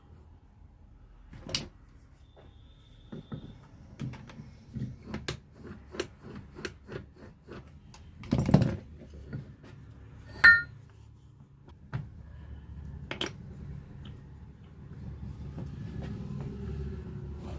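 Metal parts of a starter motor and hand tools being handled: a run of light clicks and knocks, a heavier knock about halfway, then a sharp metallic clink that rings briefly.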